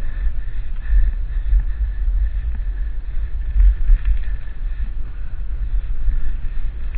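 Wind buffeting the microphone of a camera carried on a moving mountain bike, a low rumble that swells and dips, with faint rattle and trail noise from the ride.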